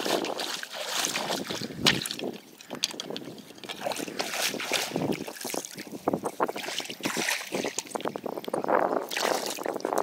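Shallow river water splashing and sloshing in uneven bursts as someone wades through it and works a hand net on a stick.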